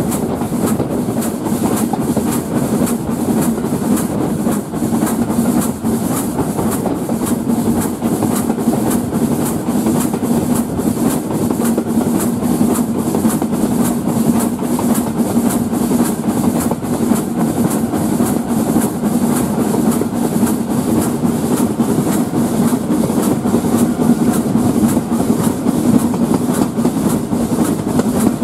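Steam-hauled heritage train running at speed, heard from a carriage window: a steady, loud rumble of the carriages on the track with a fast, even beat.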